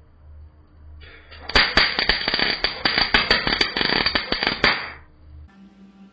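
Wire-feed welder arc crackling and spitting as it lays a bead on a steel exhaust pipe. The arc starts about a second and a half in and cuts off about three seconds later.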